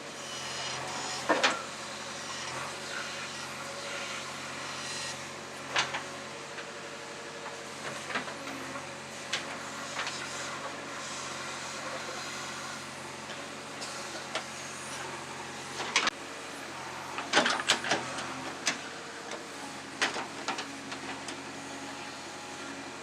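Backhoe loader's diesel engine running steadily, with several sharp knocks: one about a second in, one near 6 s, and a cluster of them later on.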